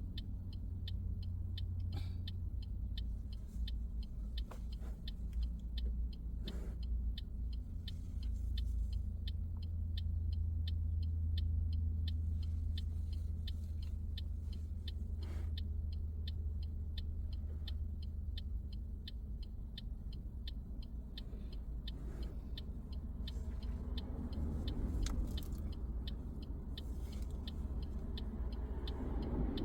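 Car cabin: low engine and road rumble with a turn indicator ticking evenly throughout, and the noise rising near the end as the car pulls away.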